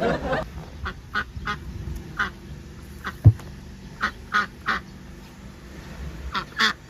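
Duck quacking in short calls, in clusters of two or three, with one sharp knock about three seconds in.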